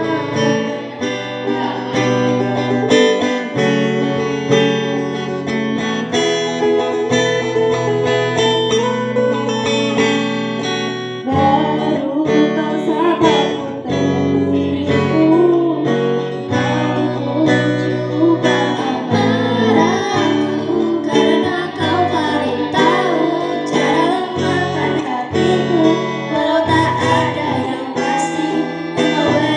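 Acoustic-version song: a strummed acoustic guitar playing steadily, with a voice singing over it.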